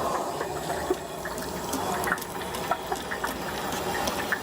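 Stinky tofu deep-frying in a large wok of hot oil: a steady bubbling sizzle with many small pops scattered through it.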